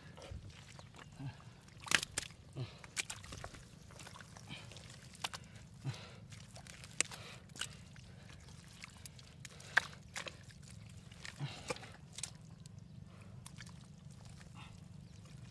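Hands digging in wet mud: irregular squelches, slaps and short knocks, the sharpest about two seconds in and again near ten seconds.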